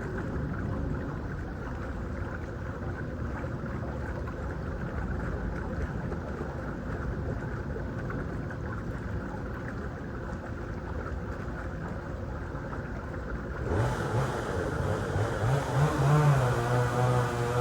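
A steady low engine rumble; about three-quarters of the way through, the sound changes abruptly to a louder engine that revs up and then holds a steady pitch.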